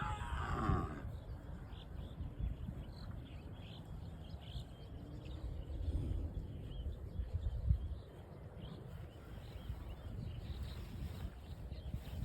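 Cows grazing close by, tearing and chewing grass with an irregular low crunching, while small birds chirp. A brief higher call rings out in the first second.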